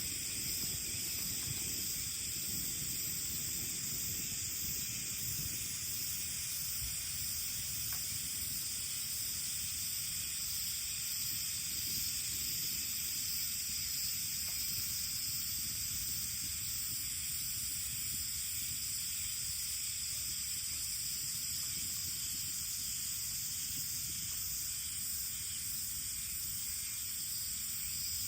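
Steady, unbroken chorus of insects shrilling high, with a low outdoor rumble underneath.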